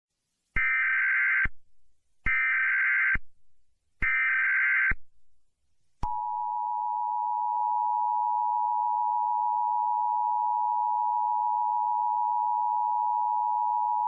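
Emergency Alert System broadcast signal: three short data bursts of the SAME header, each under a second long and about 1.7 s apart. About six seconds in, the steady two-tone EAS attention signal begins and holds without change. The attention signal announces that an emergency alert message follows.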